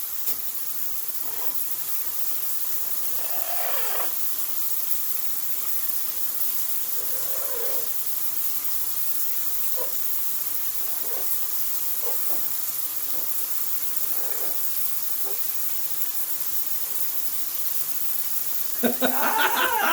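Shower water spraying with a steady hiss, with a few faint, soft voice-like sounds scattered through it. A person starts speaking near the end.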